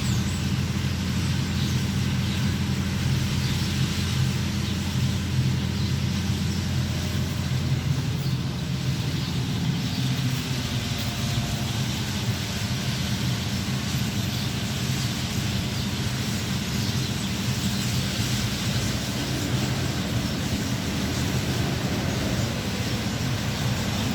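Steady low hum of street traffic with an idling vehicle engine, over the dense high-pitched chatter of a flock of swallows and sparrows roosting in a tree.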